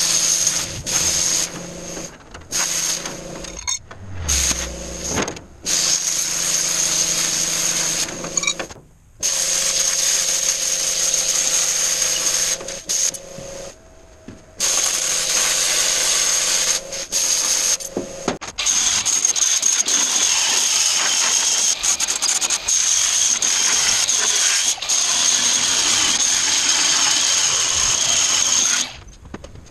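Hand-held power tool running against stainless-steel sheet panels, a steady high whine over a dense grinding noise. It stops and starts abruptly several times, as short pieces are cut together.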